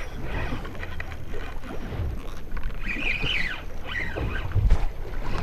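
Steady low wind and water rumble on a small boat at sea, with a few low thumps and some short high squeaky sounds about three and four seconds in.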